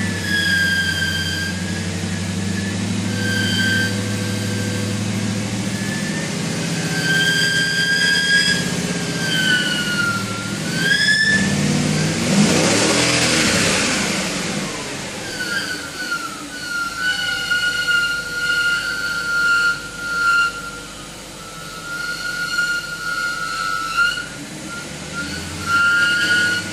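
BMW E39 5 Series engine idling with a high-pitched squeal and whistle from the accessory belt pulleys, coming and going and wavering in pitch. Partway through there is a louder rush of engine noise. The uploader traced the squeal to a squeaking bearing on the alternator or power steering pump, which a shot of lubricant cured.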